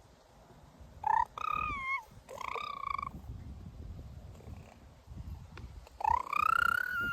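Baby boy making high-pitched squeals that sound like a cat's mews: three short calls in the first few seconds, then a longer one that rises and levels off near the end.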